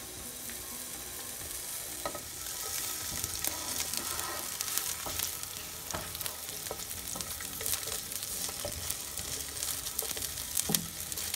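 Sliced onion sizzling in olive oil in a nonstick frying pan, with a steady hiss and scattered crackles, while a spatula stirs and scrapes it around the pan.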